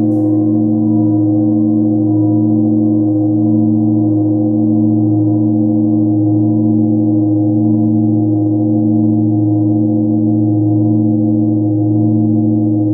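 Large bilo, a flat hanging bell tuned to 111 Hz, ringing on with no new strike: a deep steady hum with many higher overtones above it, one of which wavers slowly about once a second.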